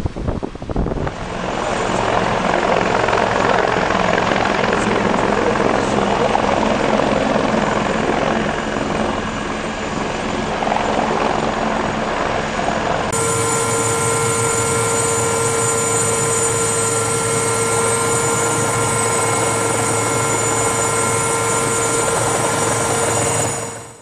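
Helicopter running steadily, a loud even rush of engine and rotor noise. About halfway through, an abrupt change to a clearer recording of it brings in several steady whining tones over the noise.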